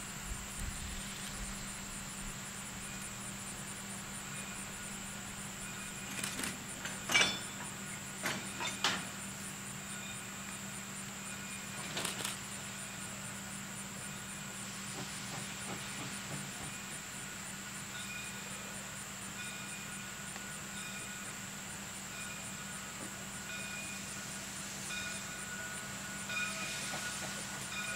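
Ohio Power & Light No. 3, a 0-6-0 steam switcher, working a passenger train at some distance, with a few sharp knocks about seven to nine seconds in and again around twelve seconds. A steady high buzz and a low hum run underneath.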